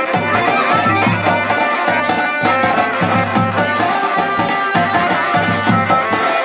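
Garhwali folk music: fast drum strokes on a dhol over steady held tones.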